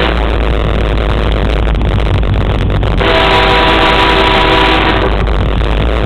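Diesel locomotive's multi-chime air horn sounding one long blast about three seconds in, lasting nearly two seconds, over the steady rumble of the engine and wheels on the rails. The blast is part of the horn signal for the road crossing just ahead.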